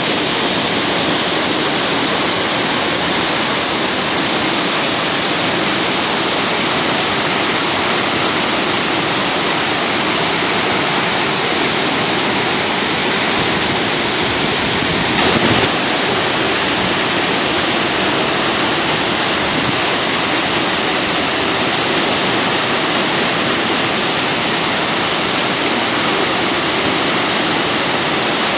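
Unchalli Falls on the Aghanashini River: the steady, loud rush of a large waterfall pouring down. A brief knock about halfway through.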